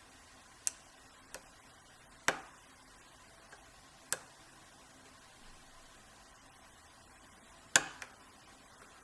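Sharp metallic clicks from single-pin picking an old Wilson Bohannan brass padlock: the pick and tension wrench working the pin stack. There are about six clicks at irregular spacing, a few with a brief ring, and the loudest comes near the end.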